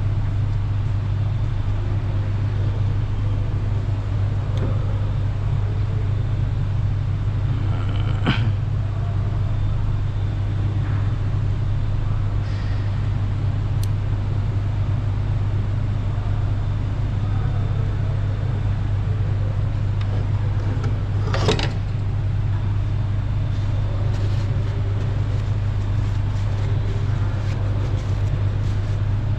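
A steady low hum, with two brief sharp clicks or knocks over it.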